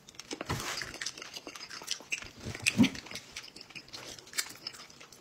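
People chewing jelly beans: a string of small mouth clicks and smacks, with a short low hum-like voice sound about halfway through.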